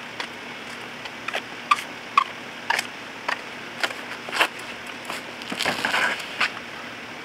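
A plastic storage tub being handled and loaded into an SUV's cargo area: a run of sharp clicks and knocks with footsteps, then a louder cluster of scraping and rustling near the end as it goes in. A faint steady hum sits underneath.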